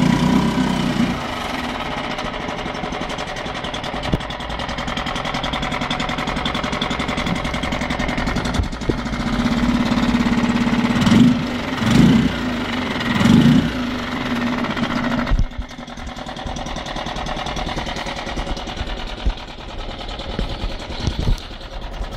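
Tohatsu 6 hp four-stroke outboard motor running in a tub of water just after a pull start. About halfway through, its note rises and falls three times as it is revved briefly. It then runs on steadily and sounds fainter.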